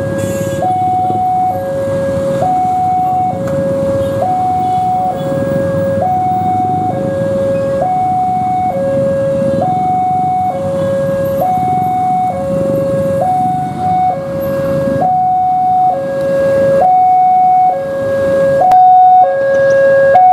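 Level-crossing warning alarm sounding with the barrier down: a high tone and a lower tone alternating steadily, each held just under a second. Underneath it, the engines of waiting motorbikes and cars rumble.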